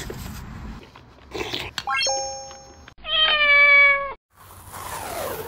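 A spoon stirs and scrapes through crushed ice in a cup. Then comes a quick rising run of notes ending in a held tone, and about three seconds in a cat gives one meow, the loudest sound, falling slightly in pitch.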